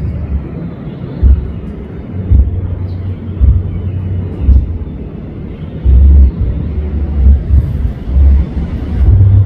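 Deep bass notes of amplified band music coming from a neighbouring church hall: only the low end carries, a steady booming with little else audible. It eases off for a few seconds and swells again about six seconds in.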